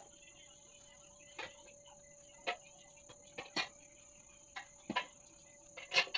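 Crickets trilling steadily at a high pitch, with short clicks and rustles every second or so, the loudest near the end.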